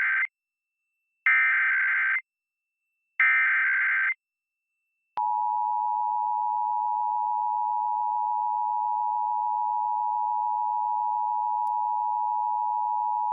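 Emergency Alert System SAME header: the end of one burst and two more bursts of rapid warbling data, each about a second long and a second apart. About five seconds in, the steady two-tone EAS attention signal (853 and 960 Hz together) starts and holds at an even level.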